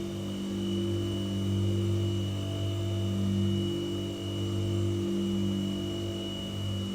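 White noise sound machine running steadily: a low hum with a thin high whine above it over a soft hiss.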